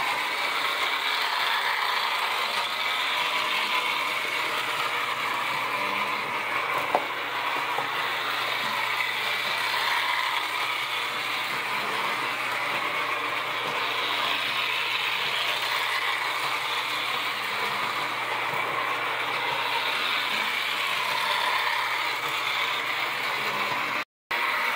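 Carlisle & Finch #18 electric trolley, a 2-inch-gauge nickel-finish toy from 1907–8, running on DC power round a loop of track: a steady mechanical clatter of its electric motor and wheels on the rails. A single sharp click comes about seven seconds in, and the sound breaks off for a moment near the end.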